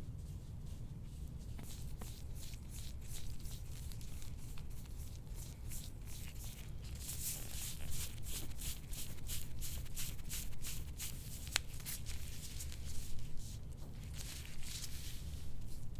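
Soft-tissue work on a patient's back: short rubbing strokes over skin, a few a second, growing louder about seven seconds in, with one sharp click past the middle. A low steady room hum lies underneath.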